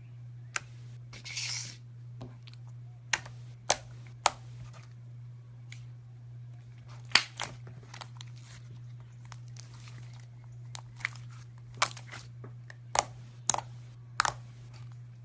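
Crunchy iceberg slime being handled: its dried crust gives a dozen or so sharp, irregular crackles and crunches, with a brief crinkling rustle about a second in. A steady low hum sits underneath.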